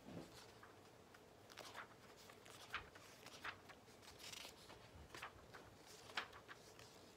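Faint, scattered rustling and flicking of paper book pages being turned by hand, the sharpest flick about six seconds in.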